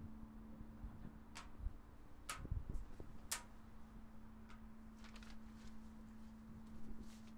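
Faint clicks and taps of sheet music and stand magnets being handled at a carillon's music stand, three sharp ones in the first few seconds and softer ones later. Under them runs the steady low hum of a carillon bell still ringing on.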